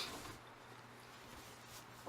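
Faint eating sounds of noodles being eaten close to the microphone: one short louder noisy mouth sound right at the start, then quiet small sounds.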